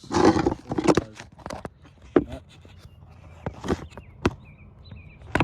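Handling noise and footsteps: a flurry of scuffs and knocks at the start, then scattered sharp clicks and taps.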